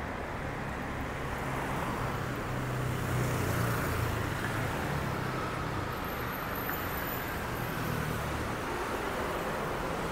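Street traffic: the running engines and tyre noise of passing cars and motorbikes, with one vehicle's low engine hum growing louder about three to four seconds in and then fading.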